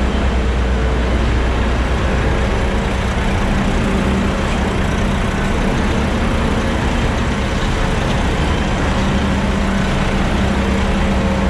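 Concrete mixer truck's diesel engine running steadily close by, a loud, even drone that holds the same pitch throughout.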